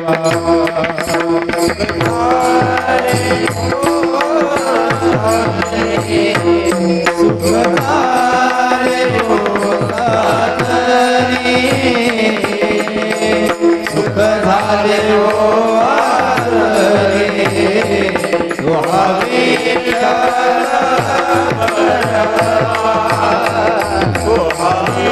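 Marathi devotional abhang music. A singer's voice draws out long phrases that glide up and down without clear words. Under it run a steady held drone and regular hand-drum beats.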